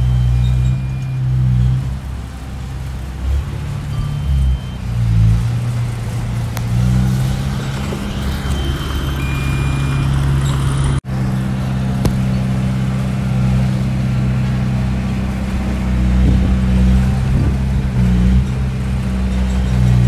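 Heavy diesel engines of a bulldozer and a dump truck running, a deep steady rumble that swells and eases as the machines work. The sound cuts out for an instant about halfway through and then resumes.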